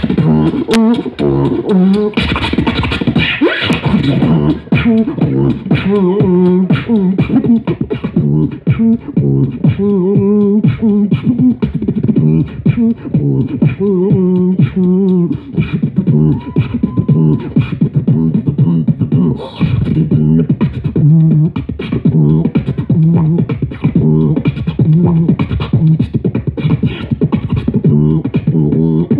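Beatboxing: rapid mouth-made drum sounds with a hummed, pitched vocal line woven through them.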